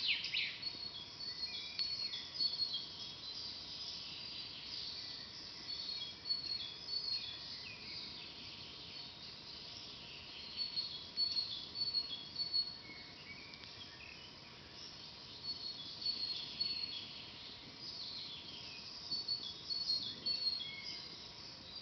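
Several small songbirds chirping and singing in short, quick phrases of high notes, coming in irregular clusters over a faint steady background hiss.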